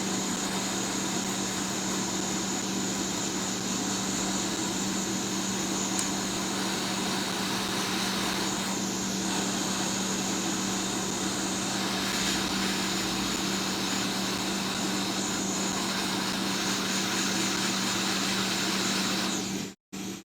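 Hot air rework station blowing steadily at a low 140 degrees, a steady rushing hiss over an even motor hum, warming the freshly applied UV-cure mask on the board. It cuts off suddenly near the end.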